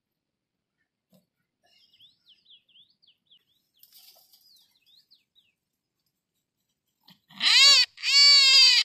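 A snagged wild rabbit screaming in distress as it is freed: two loud, high-pitched cries near the end, each under a second, after a few faint, short chirps.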